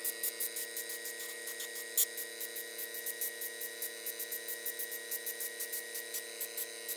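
Airbrush spraying black paint in short, quick hissing bursts, about three a second, as it dots spots onto EVA foam, with one louder burst about two seconds in. A steady hum runs underneath.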